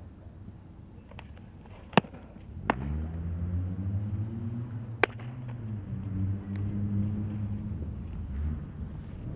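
A pitched softball popping sharply into the catcher's leather mitt about two seconds in, with another sharp glove pop about five seconds in. Behind them, the low hum of a motor vehicle's engine comes up a little before three seconds and runs for about six seconds.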